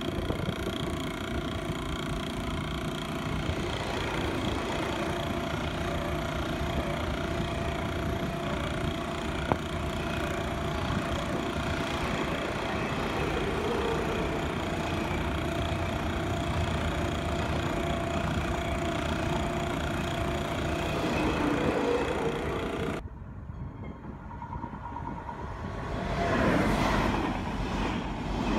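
TGV Duplex high-speed train passing through the station without stopping: a steady rush of wheels on rail with a sustained whine. About 23 s in the sound cuts off abruptly to a quieter recording, where a passing train's noise swells again near the end.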